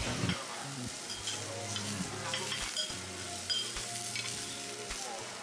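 Steady sizzling from a tabletop yakiniku grill, with a few light clinks of ceramic tableware.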